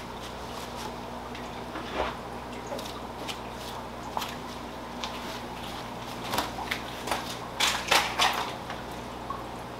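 Wooden clunks and knocks as the hinged lid of an aquarium canopy is lifted open and handled, over a low steady hum. A cluster of louder knocks and rattles comes about two-thirds of the way through.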